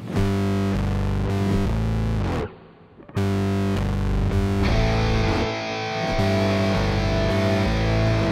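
Background rock music with distorted electric guitar playing chords. It breaks off briefly about two and a half seconds in, then comes back fuller.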